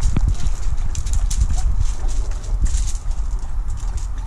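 Heavy low rumble of wind buffeting the microphone, with irregular crunching on gravel.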